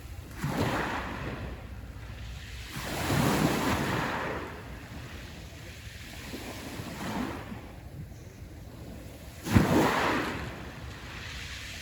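Black Sea waves breaking on the shore, swelling and falling back about four times, a few seconds apart. The break near the end is the loudest and sharpest.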